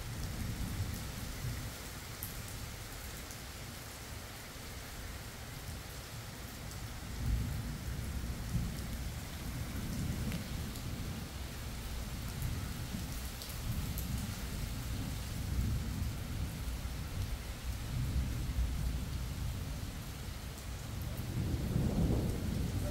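Thunderstorm: steady rain hissing down while thunder rumbles, swelling and fading several times and loudest near the end.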